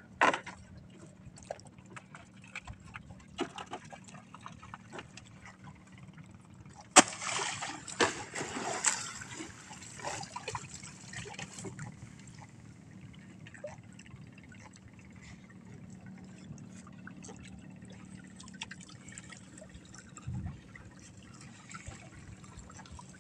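Water trickling and splashing as wet collapsible net traps are handled over the side of a small wooden outrigger boat, with scattered small knocks and a louder splashing rush about seven seconds in. A faint steady hum runs underneath.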